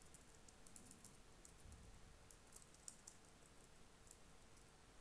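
Faint keystrokes on a computer keyboard: a quick, irregular run of clicks as a phrase is typed.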